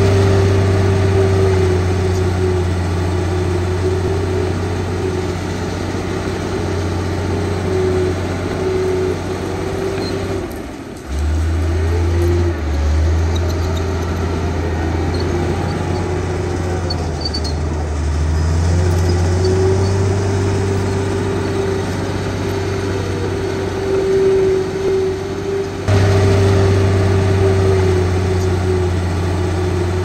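Heavy diesel earthmoving machinery working dirt: a low engine drone with a steady whine above it. The engine note changes abruptly about a third of the way in, rises in pitch a little past the middle, and changes back near the end.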